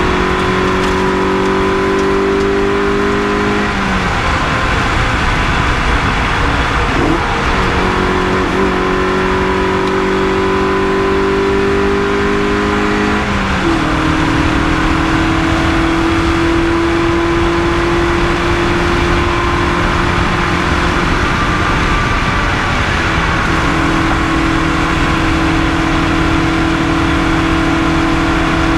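Rally car's engine heard from inside the cabin, rising in pitch as it pulls through a gear and dropping at upshifts about four and fourteen seconds in. After that it holds at a fairly steady speed, easing off briefly later on.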